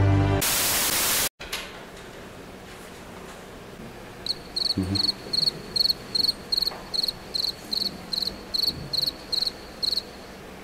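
A field cricket chirping at a steady pace of about three short trilled chirps a second. It starts about four seconds in and stops near the end, the stock comic cue for an awkward silence. Before it, about a second of loud static hiss.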